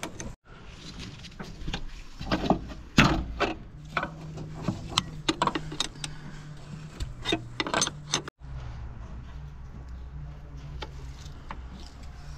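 Ford Transit 2.5 diesel engine idling steadily, with a run of sharp metallic clinks and knocks from about two to eight seconds in.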